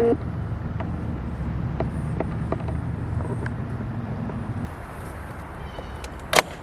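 Plastic door trim being pried at with a few faint clicks, then one sharp loud snap near the end as a piece of the BMW F10 door armrest panel pops free. A low steady rumble underneath stops about two-thirds of the way through.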